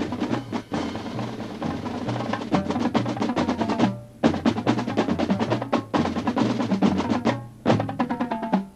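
Marching band playing a percussion-heavy passage: rapid drum and wood-block strikes over a stepping bass line. The band cuts off briefly about four seconds in and again near the end.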